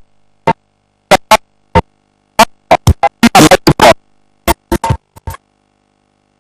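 Electronic intro music for a TV programme: a stuttering run of short, sharp synthesized hits and stabs that stops abruptly about five seconds in.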